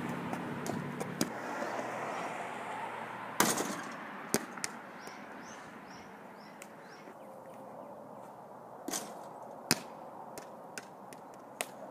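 A basketball hitting the backboard and rim and bouncing on pavement: a handful of sharp knocks over a steady background hiss, the loudest about three and a half seconds in.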